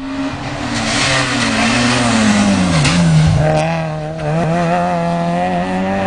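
Rally car's engine running hard at high revs as it approaches at speed, with road and exhaust noise. The revs fall away and drop sharply about three seconds in, then climb and hold again as the car keeps coming.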